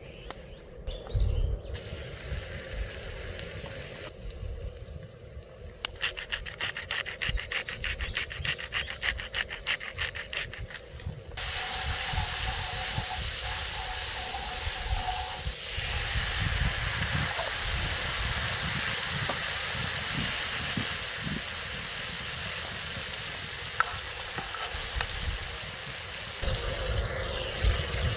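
Oil and red chili powder sizzling on a hot round griddle pan, stirred with a wooden spoon. It crackles in quick, even strokes at first, then turns to a louder, steady hiss from about eleven seconds in.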